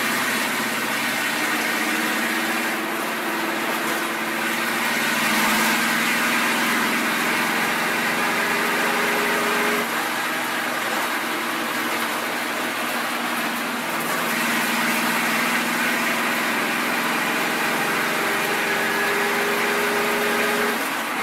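Stock race car's engine heard from inside the cockpit at speed. Its pitch climbs steadily as the car accelerates, drops sharply about ten seconds in, then climbs again and drops once more near the end.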